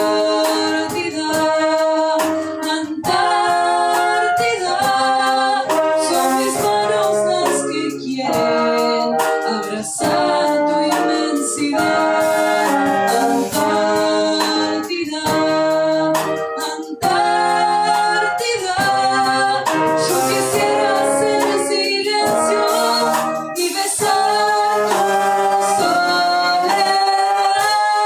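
Small wind ensemble of clarinets, flute and trombone playing an instrumental passage of a song, a continuous melody of changing sustained notes.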